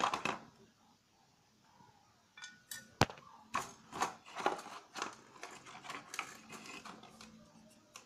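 Handling noise from a homemade plastic device housing and its parts: irregular clicks, knocks and light rattles, with one sharp click about three seconds in and a busy run of small knocks after it.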